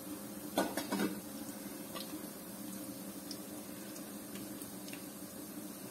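Spinach pakoras deep-frying in hot oil, a steady sizzling bubble, with a few sharp clicks of a slotted spatula against the pan about half a second to a second in and again near two seconds.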